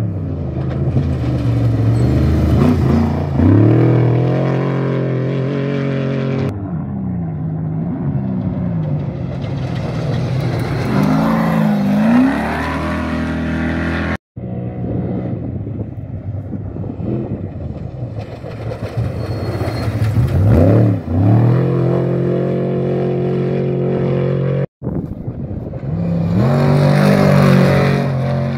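Off-road race vehicles' engines revving hard as they pass one after another. The pitch climbs with each gear and swoops down as each one goes by. The sound cuts off abruptly about halfway through and again near the end.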